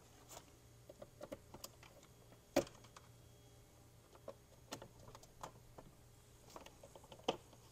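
Scattered light clicks and clatter of multimeter test leads being handled and connected to a jump pack's terminals. Two sharper clicks stand out, one about two and a half seconds in and one near the end.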